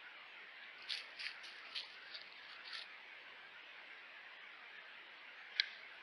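About six quick soft crackles in dry leaf litter as stone martens move and forage, then one sharper click near the end, over a steady faint hiss.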